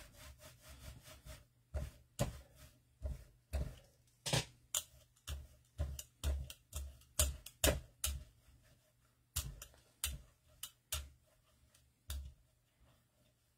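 Irregular light knocks and clicks of paint tools on a gel printing plate on a tabletop, about two a second with short pauses, as off-white acrylic paint is worked over the plate. They stop near the end.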